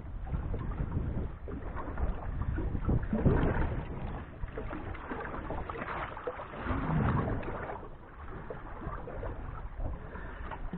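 Wind and water noise aboard a small fishing boat, swelling twice in gusts.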